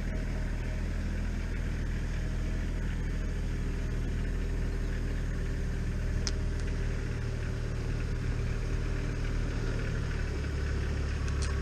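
A steady low mechanical hum, like a motor running at idle, growing a little stronger near the end, with a single faint click about six seconds in.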